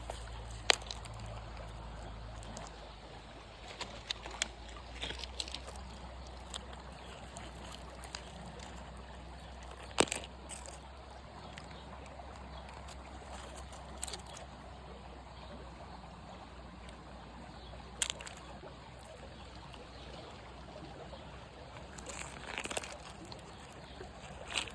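Water trickling and sloshing steadily, broken by a few sharp clicks or knocks, the loudest about 10 and 18 seconds in.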